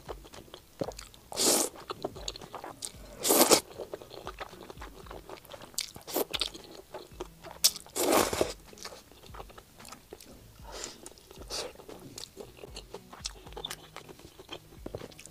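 Close-up eating sounds: noodles slurped in three louder drawn-in sweeps, about a second and a half in, at three and a half seconds and near eight seconds, with wet chewing and smacking clicks of noodles and pork belly between them.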